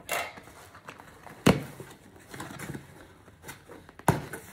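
A cardboard shipping box being handled and opened on a hard tabletop: soft rustling with three sharp knocks, the loudest about a second and a half in.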